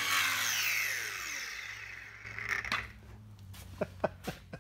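Cordless angle grinder with a cutting disc coming off its cut through a water heater's gas pipe and spinning down, its whine falling in pitch over about two seconds. A few small clicks follow near the end.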